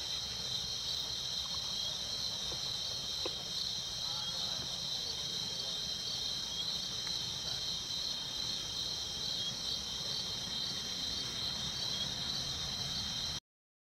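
Steady chorus of crickets, a continuous high trill, over a low rumble; the sound cuts off abruptly just before the end.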